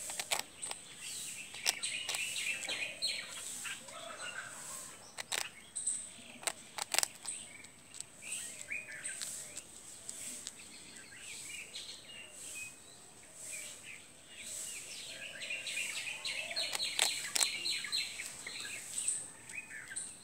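Small birds chirping and twittering, with a dozen or so sharp crunches of a squirrel biting into hard toast, clustered near the start and again near the end. A steady high-pitched whine runs beneath.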